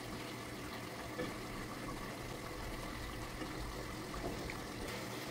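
Hilsa fish pieces cooking in a thick yogurt-spice masala in a pot: a steady, even sizzle and simmer, with one light tap about a second in.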